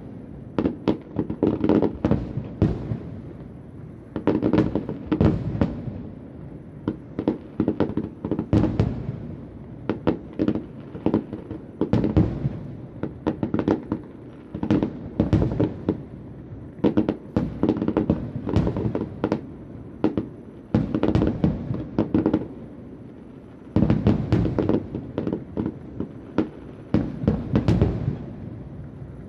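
Fireworks display: a rapid run of bangs and crackling bursts in dense clusters, with short lulls between them and a low rumble underneath.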